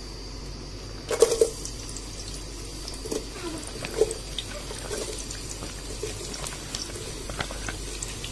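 Cooking oil being poured into a pan to fry onions, with a short loud clatter about a second in and scattered light ticks after it.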